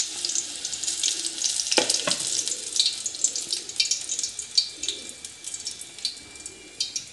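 Hot oil crackling and sizzling in a kadhai as a batch of fried momos is held on a perforated steel skimmer just above it, the crackle thinning and quietening as it goes. Two sharper knocks about two seconds in.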